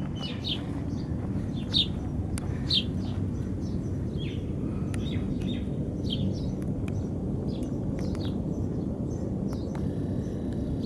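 Small birds chirping, short separate calls every second or so, over a steady low outdoor rumble.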